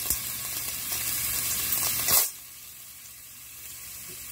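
Shrimp sizzling in hot oil in a frying pan. A little after two seconds there is a brief louder hiss as chopped onion goes in, and then the sizzle turns much quieter.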